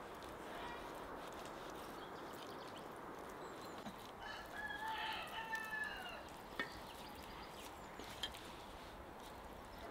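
A rooster crows once, a single call of about two seconds beginning about four seconds in, over steady outdoor background noise. A couple of light clicks follow.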